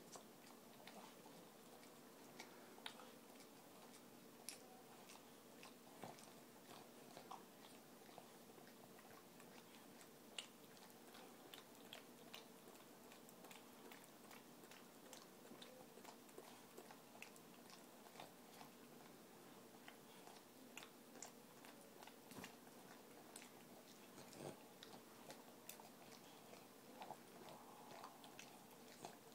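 Boston terrier licking in and around another dog's mouth: faint, irregular wet smacking and clicking of tongue and lips, many small clicks throughout.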